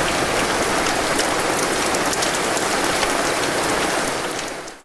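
Heavy rain pouring down, a dense steady hiss with many individual drops striking close by; it fades out just before the end.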